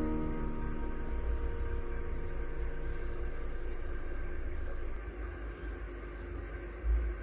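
Steady low rumbling background noise, with one brief bump about seven seconds in.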